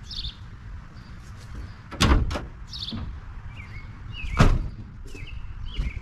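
Two heavy clunks of a Ford pickup's hood being worked, about two and a half seconds apart, the hinges freshly sprayed with lubricant after they had started squeaking. Small birds chirp between them.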